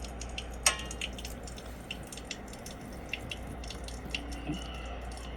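Water running from a tap with irregular drips and small clicks, one sharper click about a second in, over a low steady hum.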